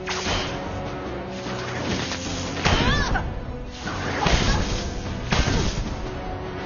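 Cartoon fight soundtrack: dramatic background music with swooshes and several sharp hits, the loudest about three and four seconds in.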